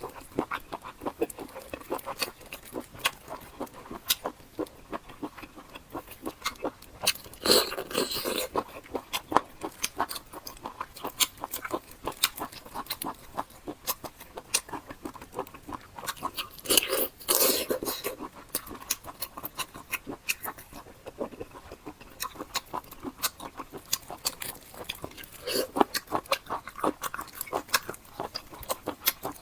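Close-miked chewing and wet mouth sounds of eating a giant octopus leg: a dense run of small clicks and squelches, with louder, fuller bites about 8 s, 17 s and 26 s in.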